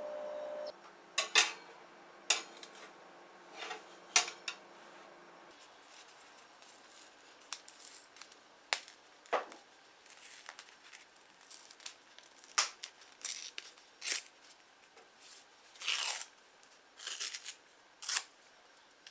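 Paper-cup mold crinkling and tearing as it is peeled off a baked cupcake, in scattered short bursts. A steady hum cuts off under a second in.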